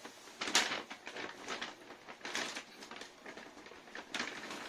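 Handling noises from a shoe box being picked up and moved: irregular short rustles and scrapes, the loudest about half a second in.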